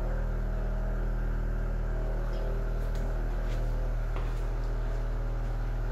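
Power Plate whole-body vibration platform running with a steady low hum, with a few light taps about two to four and a half seconds in.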